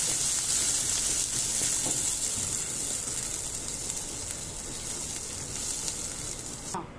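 Onion-tomato masala and makhani gravy sizzling in a stainless steel kadai while being stirred with a silicone spatula, with a few faint scrapes. The sizzle slowly fades and cuts off near the end.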